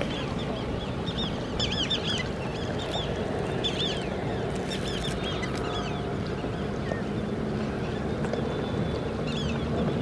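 Short high calls from a flock of wintering waterbirds, coming in bunches every second or so, over steady water-and-wind noise at the shore. A faint low hum joins near the end.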